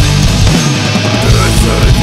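Metalcore song, loud and dense, with heavily distorted guitars playing a low riff.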